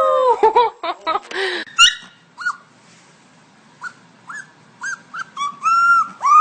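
Puppy howling: a long howl trails off and falls in pitch at the start, followed by a few short yips, then brief rising yelps that build, near the end, into a new held howl.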